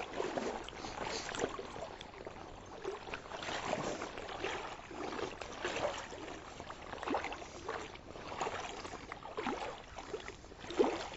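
Legs in waders moving through shallow lake water: irregular sloshing with small splashes and faint knocks.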